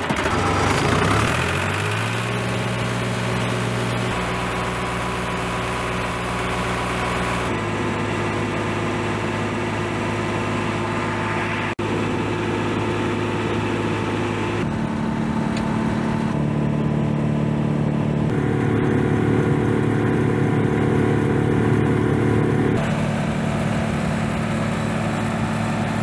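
An old International Harvester diesel tractor engine running steadily; its speed rises a second or two in. The engine note shifts abruptly several times.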